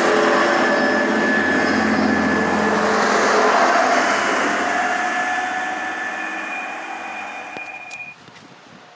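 Passenger train passing close by: a loud steady rumble of wheels on rails with a few whining tones, fading as the train pulls away, then cut off abruptly near the end, leaving faint background noise.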